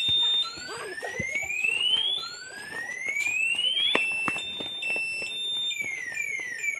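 Electronic alarm siren sounding the warning for an earthquake drill: repeated rising whoops, each climbing for about a second and a half, alternating with a steady high two-note beep. Scattered short knocks run underneath.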